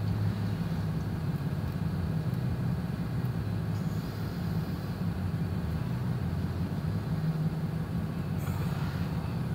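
Truck engine idling: a steady low hum heard from inside the closed cab.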